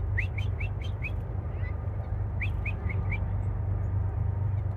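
A small songbird calling: two quick runs of short, upward-sliding notes, about five at first and four more a second or so later, over a steady low background rumble.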